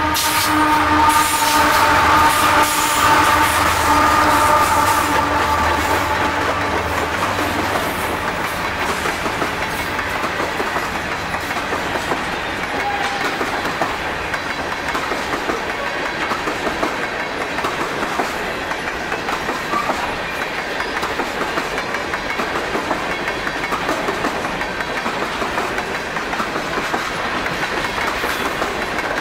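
Two Canadian Pacific GE diesel locomotives, an AC44CW and an ES44AC, pass close with their engines running, a low drone with steady tones that fades over the first several seconds. Then a long string of covered hopper cars rolls by with a steady rumble and wheels clicking over the rail joints.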